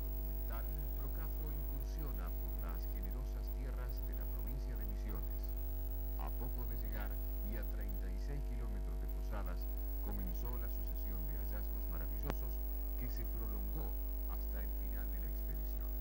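Steady electrical mains hum, with faint wavering sounds beneath it and a single click about twelve seconds in.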